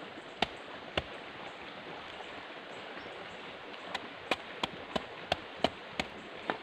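Bolo knife chopping into the husk of a halved young coconut: two strikes, then a quicker run of eight strikes about three a second, over a steady background hiss.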